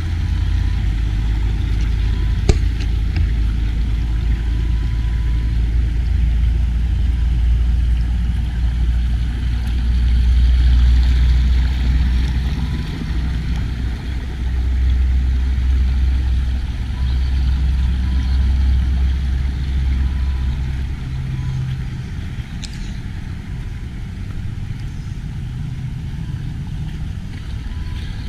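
Vaterra Twin Hammers electric RC rock crawler being driven, heard as a steady low rumble with a hiss over it that swells and eases off about twenty seconds in.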